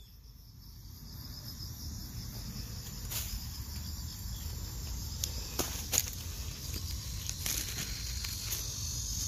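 Insects chirring steadily in a high, even band that grows a little louder toward the end, over a low rumble, with a few brief clicks.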